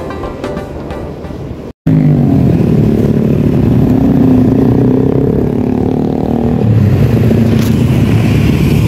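Background music for about the first two seconds, cut off suddenly, then a motorcycle being ridden: its engine and the road noise loud and steady.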